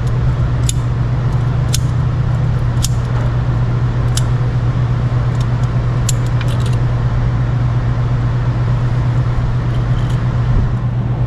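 Scattered sharp metallic clicks of safety wire pliers twisting and working steel safety wire on a VW throw-out bearing clip, most of them in the first seven seconds, over a steady low hum.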